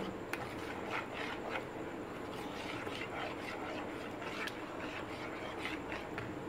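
A hand mixing chunks of chicken through a thick yogurt and spice marinade in a bowl: irregular soft wet squelches and clicks, stopping shortly before the end.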